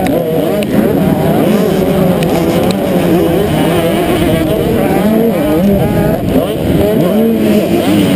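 Several motocross bike engines running hard in a close racing pack, their pitches rising and falling constantly as the riders work the throttle and shift, heard loud from a camera riding on one of the bikes.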